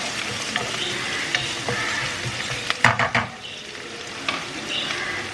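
Onion, green chillies and curry leaves sizzling in hot oil in a pan as they are stirred, with scattered clicks and scrapes of the stirring utensil on the pan and a louder cluster of them about three seconds in.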